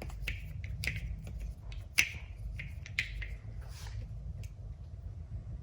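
Hand-tightening small screws into a handlebar control clamp with an Allen wrench: a string of short clicks and squeaks, the loudest about two seconds in, dying away after about four seconds.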